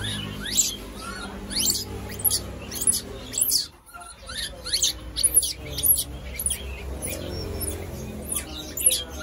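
Small caged birds chirping: many short, high chirps that drop quickly in pitch, over a low steady hum.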